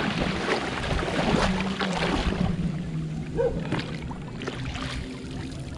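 Shallow river water sloshing and splashing around the legs of a man wading and towing a small boat, busiest in the first half. A low steady hum runs underneath.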